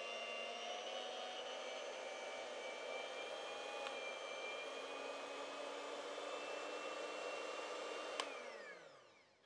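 Electric hand mixer running steadily, its beaters churning stiff cassava-flour tô in a metal pot. About eight seconds in it is switched off with a click and the motor winds down to a stop.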